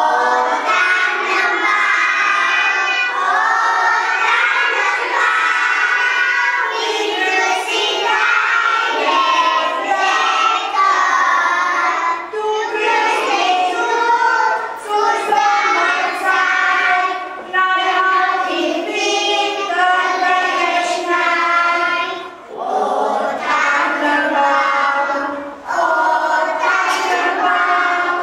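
A group of kindergarten children singing a Romanian Christmas carol (colind) together, with a few brief pauses between phrases.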